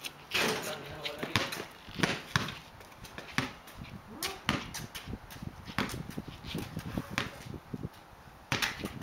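Basketball bouncing on concrete in an irregular run of sharp knocks, with sneakers scuffing during a one-on-one game.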